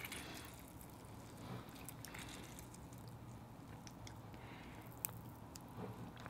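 Lemon wedges squeezed by hand over baked oysters in their shells: faint squishing with a few small clicks, one sharper click about five seconds in.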